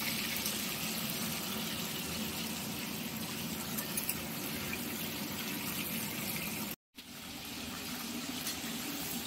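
Pieces of rohu fish frying in hot mustard oil in a kadai: a steady sizzle, which cuts out briefly about seven seconds in.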